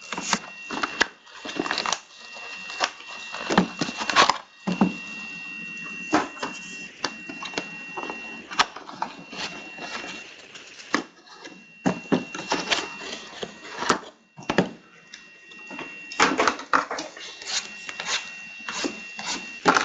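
Cardboard trading-card boxes and mini boxes being handled and opened, with card packs pulled out: irregular rustling, scraping and light knocks of cardboard and foil.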